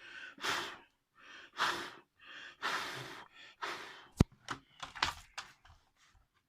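A person blowing hard in about five short breaths, most likely to dry alcohol cleaner off the clock's insides, then a sharp click about four seconds in and a few light clicks.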